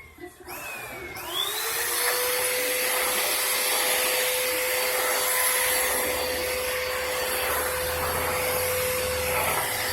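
Vacuum cleaner motor starting up about a second in, its whine rising, then running steadily.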